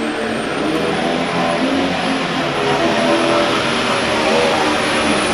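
John Deere pro stock pulling tractor's turbocharged diesel engine at full throttle hauling a weight-transfer sled, with a high turbocharger whistle held steady above the engine noise, getting slowly louder.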